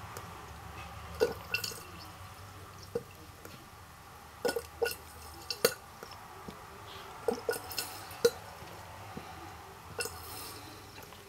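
Alca glass hydrometer's bulb drawing lead-acid battery electrolyte up and squirting it back into the cell, giving faint, irregular liquid pops, drips and small clicks, with a brief hiss about ten seconds in. The electrolyte is being bubbled to check whether the battery plates are shedding.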